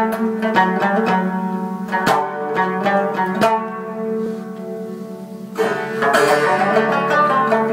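Afghan rubab played solo: quick plucked notes with sharp attacks over steadily ringing sympathetic strings. The playing thins out just past the middle, then comes back fuller and denser about three-quarters of the way in.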